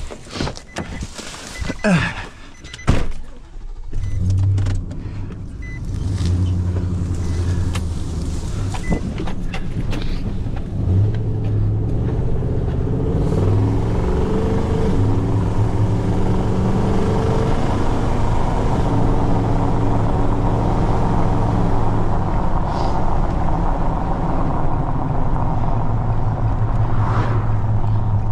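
Pickup truck door clunks and knocks as the driver climbs in, then the engine starts about four seconds in and runs as the truck pulls away, its pitch shifting as it gets up to speed before settling into a steady drone, heard from inside the cab.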